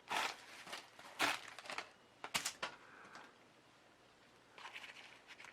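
Handling noise from a hand gripping a plastic camcorder: a few sharp clicks and knocks, a close pair of them a little after two seconds, with faint rubbing near the end.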